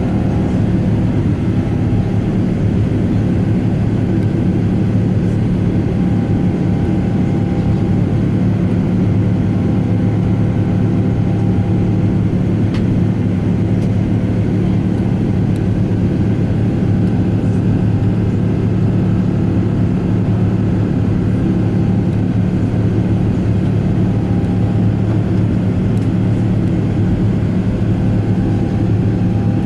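Steady cabin noise aboard a Boeing 777-300ER in its climb: a continuous roar of engine and airflow with a low hum that holds steady throughout.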